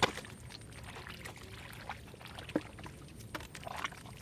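Wet splashing and squelching of hands working in shallow muddy water, with two sharp slaps, one at the start and one about two and a half seconds in.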